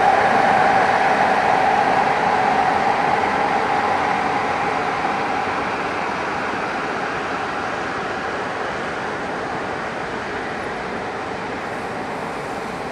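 Electric passenger train rolling past: a CFR electric locomotive and its coaches give a steady rush of wheels on rails that slowly dies away as the locomotive draws off. A steady hum in the rush fades out about halfway through.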